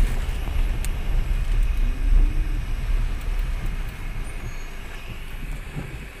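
Inside a car moving slowly in heavy rain: a low rumble of engine and road with a steady hiss of rain and wet tyres, growing quieter in the second half as the car slows behind the vehicle ahead.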